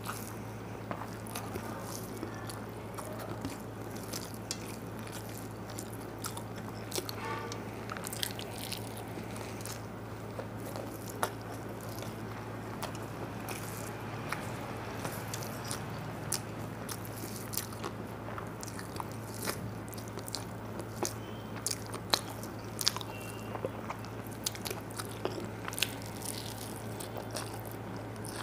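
Close-miked person chewing and biting food, with many small crunches and mouth clicks scattered throughout, over a steady low hum.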